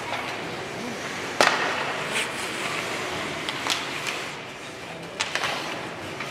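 Ice hockey game sounds in a rink: skate blades scraping the ice under a steady wash of arena noise, with several sharp knocks of stick and puck, the loudest about a second and a half in.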